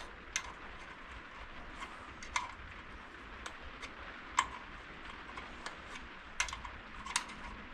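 Scattered light metallic clicks, irregular and about one every half second to a second, as a greased engine mounting bolt is wound in through the engine and frame lugs.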